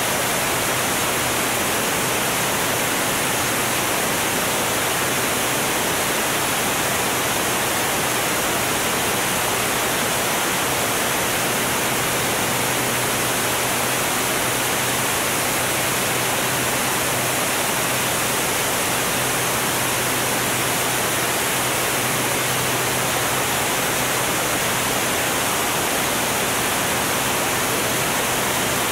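Steady rush of wind over an onboard camera microphone on a Formula One racing airplane flying at over 200 mph, with a faint steady engine drone underneath.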